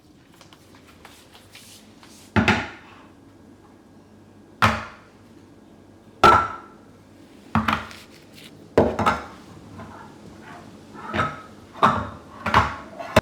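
Kitchen work: about nine sharp knocks and clunks at irregular intervals, each ringing briefly.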